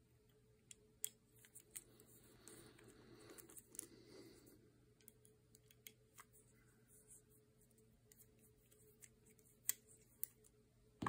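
Near silence with scattered faint clicks and taps of a pistol slide and its mounted red-dot sight being handled and fingered.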